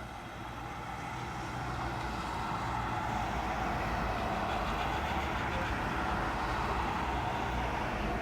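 A road vehicle passing on the street, a steady tyre and engine noise with a low rumble that grows louder over the first couple of seconds and then holds.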